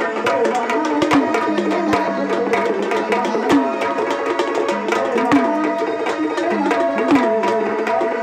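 Sambal, a pair of joined Maharashtrian ritual drums, played fast with two sticks in a busy, continuous rhythm. Every second or two a stroke on the bass drum slides down in pitch. A steady held tone sounds underneath.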